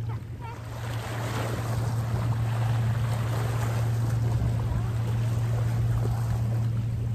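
Small sea waves washing over the rocks, with wind on the microphone and a steady low hum underneath.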